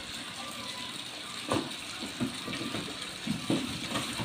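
A kitten scrambling into and against a cardboard box: several short, soft thumps and scuffs of cardboard, the first the loudest, over a steady hiss.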